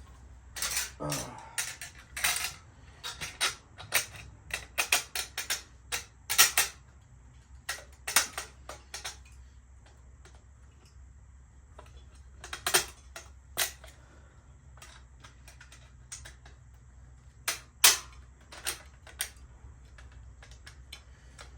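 Small metal bicycle parts, the mini pegs and their hardware, clicking and clinking as they are handled and fitted. A quick run of sharp clicks in the first several seconds is followed by a few scattered single clicks.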